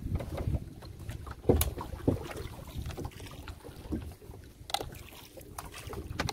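Wet gill net being hauled by hand into a small boat: irregular knocks and splashes against the hull, the loudest about a second and a half in, over a steady low rumble.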